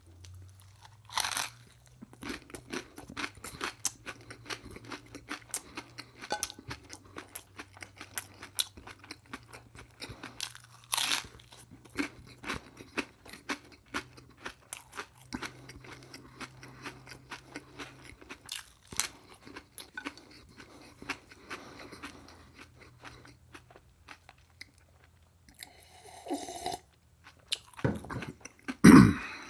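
Close-miked crunchy chewing, a dense run of crisp crunches with a few louder bites, and two louder, lower mouth sounds near the end.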